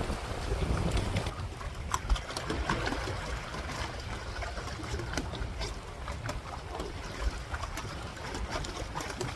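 Wind buffeting the microphone over water splashing around a pedal-powered aqua water bike as it is pedalled, with scattered small clicks and knocks.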